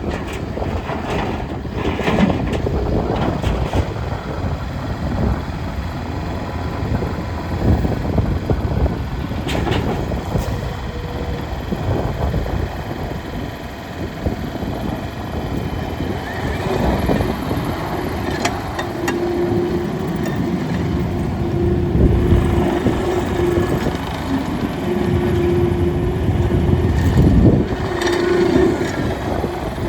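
Takeuchi TL12 skid steer loader's diesel engine running while the machine is worked, rising and falling in level. In the second half an alarm sounds in long beeps about a second each.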